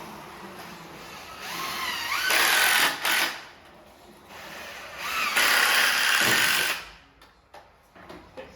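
Cordless drill driving screws in two runs of about a second and a half each, the motor whining up in pitch as each run starts.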